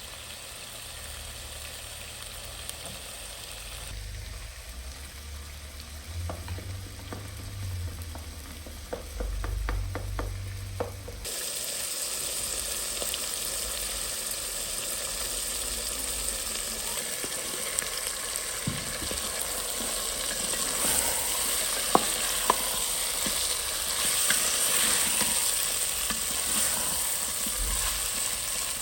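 Food frying and sizzling in a hot pan, with scattered sharp clicks of a utensil stirring it. The sizzle becomes suddenly louder and brighter about eleven seconds in.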